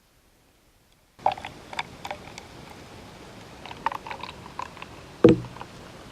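After about a second of dead silence, a beer container and glass are handled on a table: scattered small clicks and taps, then one heavier thump a little after five seconds in, as something is set down.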